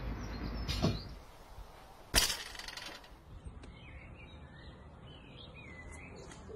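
A single loud, sharp crack about two seconds in, after a softer knock just before a second in, then birds chirping.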